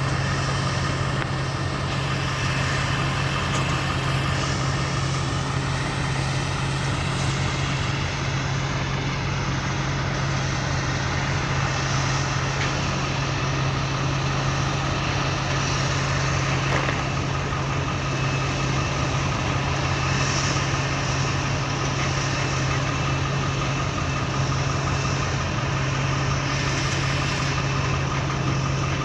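Engine of farm machinery running steadily at constant speed during a corn silage harvest, a continuous low drone with no change in pitch or level.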